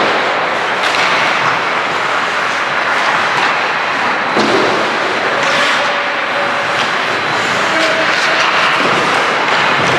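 Ice hockey play on a rink: a steady scraping hiss of skates on the ice, broken by sharp knocks of sticks and puck several times.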